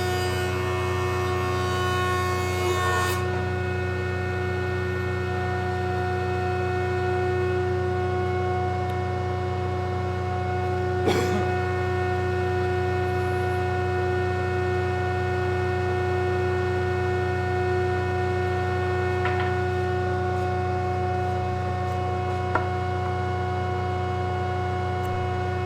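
Jointer running with a steady machine hum; for the first few seconds a board is cut on the cutterhead, giving a hissing cut over the hum, which then stops while the machine keeps running. A few light knocks of wood come later.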